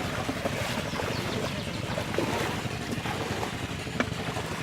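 Steady wind rumbling on the microphone over the sound of river water, with a single sharp click about four seconds in.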